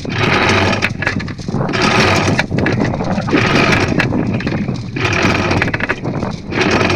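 Anchor chain being hauled in hand over hand across the bow fitting of a sailing yacht, rattling and clanking in a run of pulls about every second and a half.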